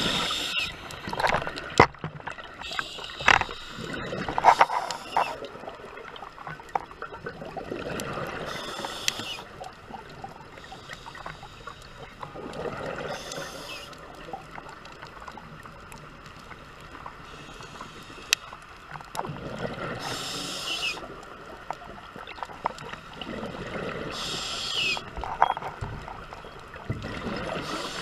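Scuba diver's regulator breathing underwater: a hissing inhale alternating with bubbling exhales, repeating every four to five seconds.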